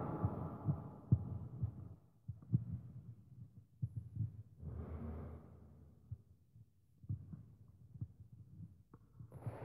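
Scattered soft low thumps and shuffling as several priests move about and sit down, with a longer shuffle about five seconds in.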